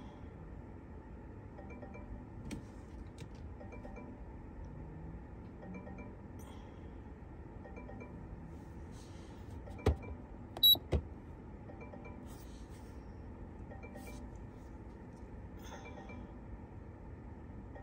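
Buttons pressed on a VFlash handheld ECU tuner: a few sharp clicks about ten seconds in, one of them with a short high beep, over a low steady background hum.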